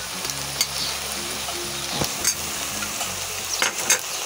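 Sliced onions and garlic paste sizzling in hot oil in a kadai, with a metal spatula clicking and scraping against the pan a few times, most of them near the end.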